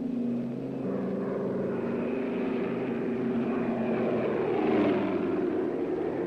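Supermarine Stranraer flying boat's twin radial engines droning as it flies low, the engine note stepping down about a second in. A rushing noise builds over the drone and peaks near the end.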